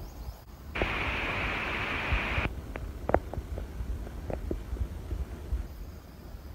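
Outdoor noise with a low, gusty rumble of wind on a phone microphone, then a steady hiss that starts abruptly about a second in and stops abruptly under two seconds later. Several short, sharp clicks and knocks follow.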